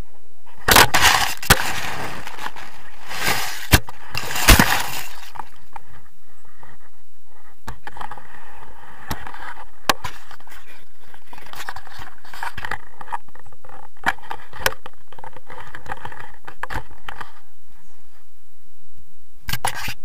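Wind rushing over a handheld action camera on a pole, with loud crackling knocks and scrapes of handling, as a tandem paraglider comes in to land.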